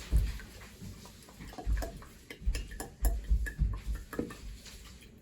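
Baby oil being poured from its plastic bottle into a glass mason jar, with irregular small clicks and knocks scattered through the pour.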